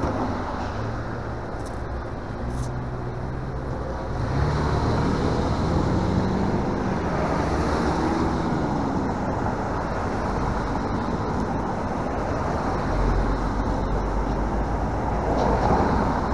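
Road traffic at an intersection: cars driving through, their engines and tyres making a steady noise, with one engine rising in pitch as it pulls away about halfway through and a low rumble growing louder near the end.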